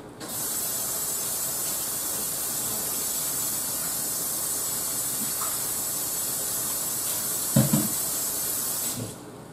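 Kitchen tap running steadily while hands are washed at the sink, with a short thud near the end, then the water cuts off suddenly.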